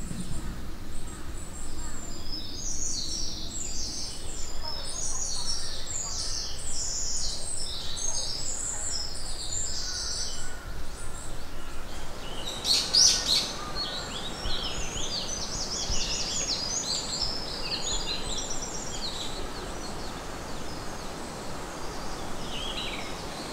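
Forest birds singing: quick runs of short, high repeated chirps, with one louder, sharper call about halfway through, over a steady low background hiss.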